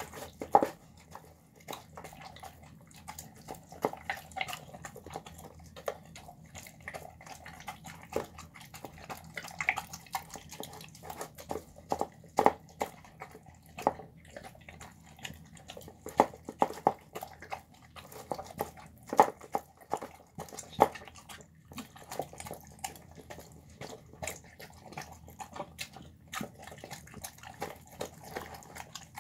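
Dog eating cooked rice and chickpeas from a bowl: wet smacking and chewing, with irregular sharp clicks and knocks against the bowl.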